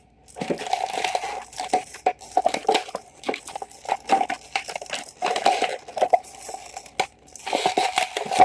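Toy packaging crinkling and crackling in irregular bursts as it is handled and pulled open by hand.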